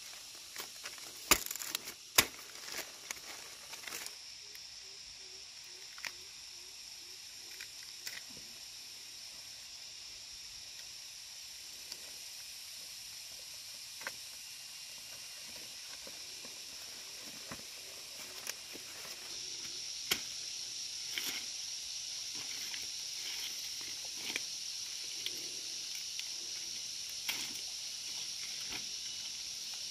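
Two sharp cracks a second apart near the start as a ripe pineapple is snapped off its stalk. Then scattered clicks and rustles of footsteps and pineapple leaves, over a steady high insect drone that grows louder about two-thirds of the way through.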